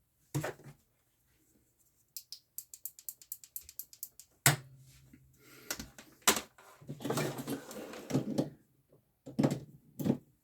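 Handling noise of plastic plugs and cables being fitted into a USB hub: sharp clicks, a quick run of rapid ticks about two seconds in, and rustling in between.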